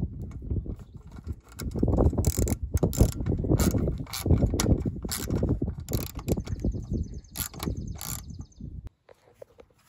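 Socket ratchet clicking in irregular bursts as it turns the pivot bolt on an RV awning arm's mounting bracket, over a low rumble. It stops suddenly near the end.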